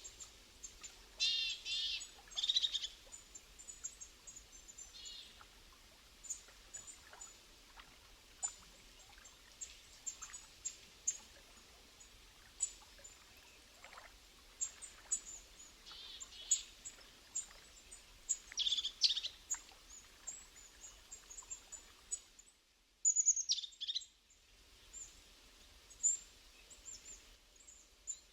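Wild birds singing outdoors: repeated short trilled phrases and many brief high chirps over a faint steady background.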